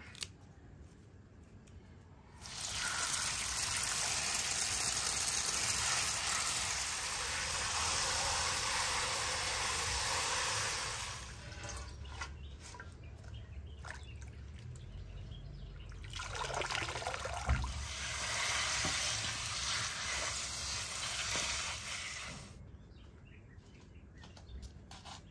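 Water running onto fresh herbs being rinsed by hand in a metal colander. It comes in two long spells, one of about nine seconds starting a couple of seconds in and one of about six seconds in the second half, with a quieter pause between them.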